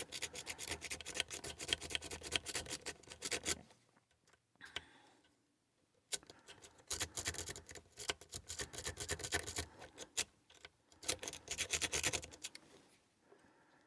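A cheap steel lock pick scraping and clicking rapidly against the pins inside a lock's keyway, in three spells with short pauses between. The attempts fail and the lock does not open.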